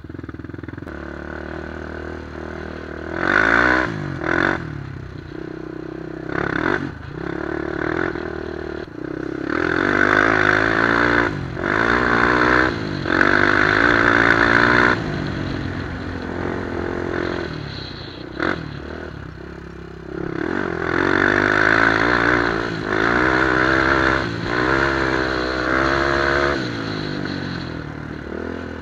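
2003 Honda 400EX quad's single-cylinder four-stroke engine, fitted with a White Bros aftermarket exhaust, under way on a dirt trail. It revs up and eases off again and again, its pitch climbing in several pulls with short drops between them.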